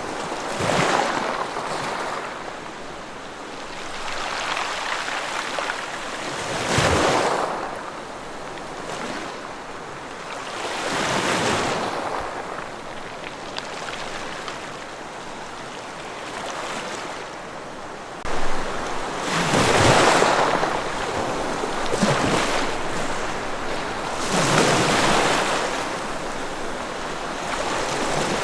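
Ocean waves breaking on a shore, surging and falling back every few seconds. The surf grows louder from about two-thirds of the way through.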